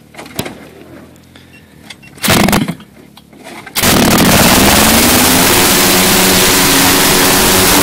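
Losi 5IVE-T 1/5-scale RC truck's small two-stroke gas engine being pull-started. It fires briefly about two seconds in, then catches about a second and a half later and keeps running loudly, its pitch rising a little before it settles to a steady idle.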